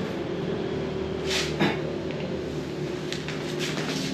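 Mobile phone on speaker ringing out after dialling, a steady ringback tone, with two sharp clicks about a second and a half in and light clicks near the end.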